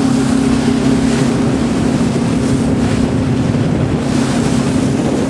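Passenger ferry's engine running with a steady low hum, under wind buffeting the microphone and the rush of water past the hull.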